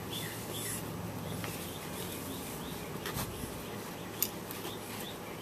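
A bird chirping in a steady run of short, repeated notes, about three a second, fading out in the first second or two. A few faint clicks follow, with a sharper one about four seconds in.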